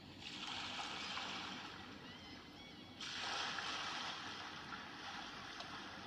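Sea surf: a steady hiss of waves breaking and washing up the shore, growing louder about halfway through.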